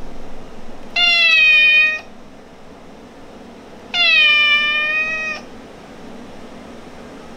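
Tortoiseshell cat giving two long, affectionate, attention-seeking meows, the second a little longer. Each starts a little higher and settles in pitch.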